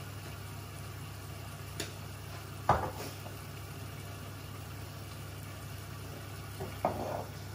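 Steady low hum of kitchen background noise, with a couple of short knocks about three seconds in and again near the end.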